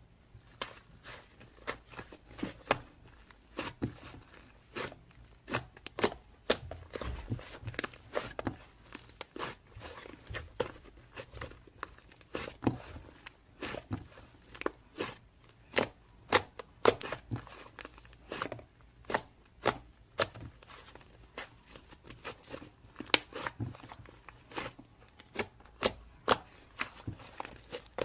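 Irregular clicks and crinkles of close handling noise, a few sharp ticks a second with some louder snaps.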